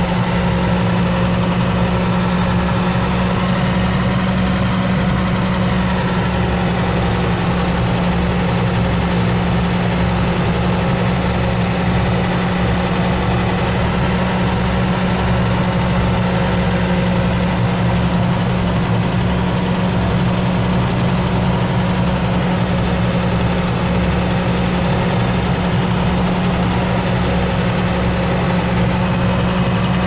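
Tractor engine idling steadily: a constant low hum over a fast, even pulsing rumble.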